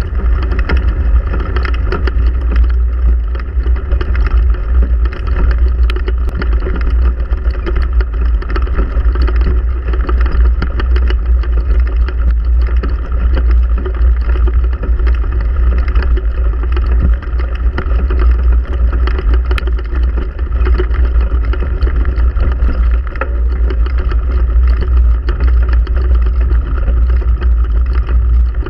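Steady, loud wind rumble buffeting a bicycle-mounted camera's microphone while riding across grass.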